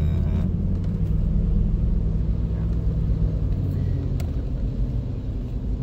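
Car engine and road noise heard from inside the cabin while driving: a steady low drone, with a faint click about four seconds in.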